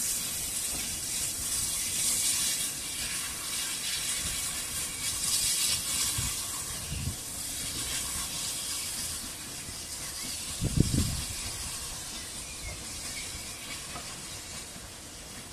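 Steam hissing from a Hunslet saddle tank steam locomotive, NCB No. 49, with a few low thumps, the loudest about eleven seconds in.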